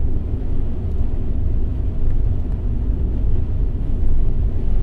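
A low, steady rumble with no clear pitch.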